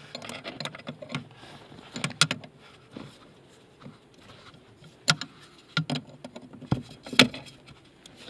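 A 12 mm wrench tightening the jam nut on a clutch master cylinder pushrod: scattered, irregular metallic clicks and taps of the wrench on the nut and pedal linkage, the louder ones about two, five and seven seconds in.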